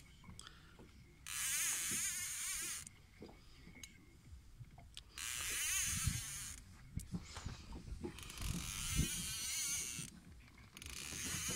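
Small baitcasting fishing reel whirring in about four bursts of a second and a half each, with faint low knocks between them, while a fish pulls against the bent rod.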